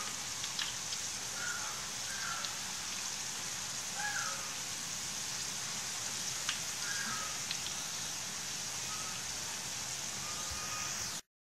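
Green banana slices deep-frying in hot oil: a steady sizzle with scattered small pops.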